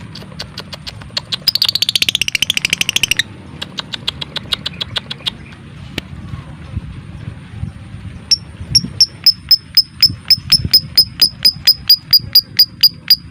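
Lovebird calling with sharp clicking chirps: a rapid chattering run about one and a half seconds in that lasts nearly two seconds, then scattered single clicks, and from about eight seconds a steady run of high sharp chirps, about four or five a second.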